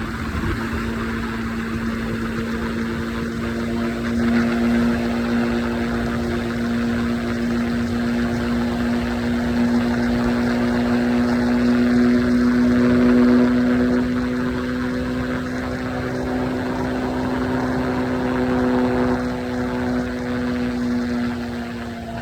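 Triumph Scrambler 400X's single-cylinder engine at a steady highway cruise: a steady drone with wind and road noise, swelling a little in the middle and easing off near the end.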